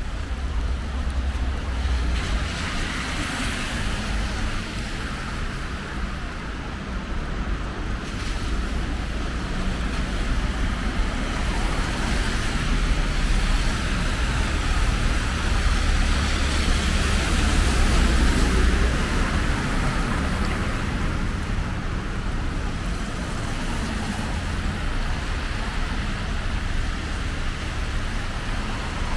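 City street traffic on wet asphalt: a steady hiss of tyres on the wet road over a low rumble. The noise swells and is loudest a little past halfway through as a bus passes.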